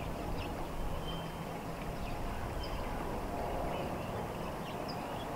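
Steady low background noise with faint, short high-pitched chirps from small birds every second or so.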